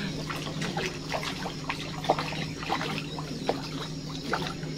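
Small waves lapping and trickling against a rocky lakeshore, a run of irregular little splashes and clicks, over a steady low hum.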